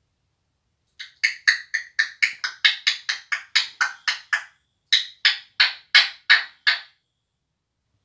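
African grey parrot making a quick series of sharp clicks, about four a second, some twenty in all, with a short break midway.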